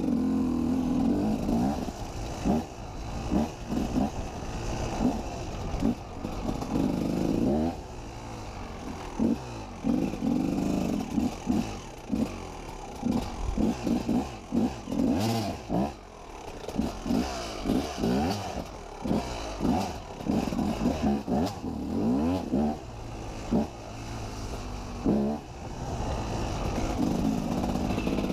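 KTM 250 EXC enduro motorcycle engine revving in short, uneven throttle bursts at slow trail pace, the revs rising and falling every second or so, with clattering from the bike over rough ground.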